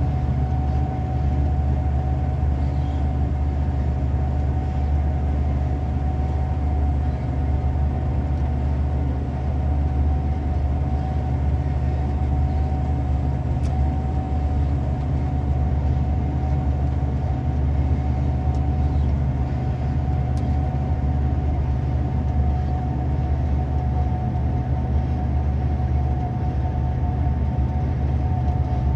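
Gleaner S98 combine running steadily while harvesting soybeans, heard from inside the cab: a constant low drone with a steady high whine over it.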